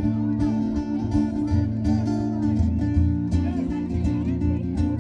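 Live band playing an instrumental break, a guitar lead over bass and a steady drum beat.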